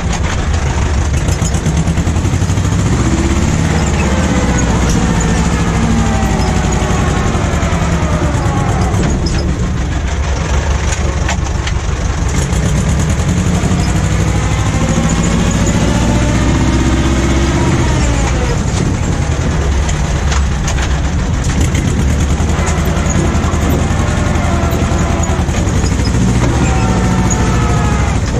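Ursus C-330M tractor's two-cylinder diesel engine running steadily, with whining tones that rise and fall in pitch several times over its low throb.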